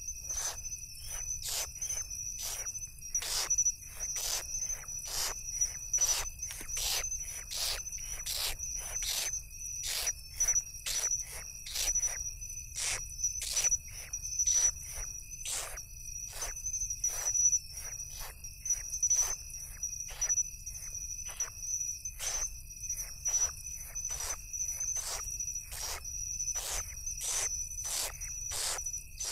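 Insects calling steadily: a continuous high trill with a fainter lower tone under it, crossed by sharp, irregular ticks about twice a second.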